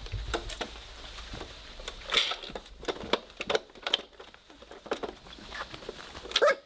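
Three-week-old Weimaraner puppies pawing and scrabbling at a plastic toy clock: irregular small clicks and taps, with a louder one near the end.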